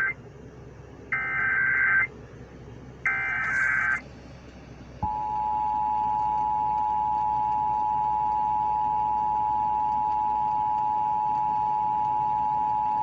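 Emergency Alert System test tones. The end of one burst of the SAME digital header is heard, then two more one-second bursts of harsh, buzzy data tones with short pauses between them. About five seconds in, the steady two-note EAS attention signal begins and holds unbroken for about eight seconds.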